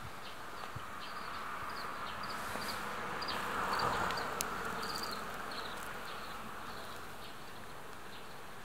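Outdoor garden ambience: small birds chirp briefly again and again, over a buzzing hum that swells to its loudest about four seconds in and then fades away.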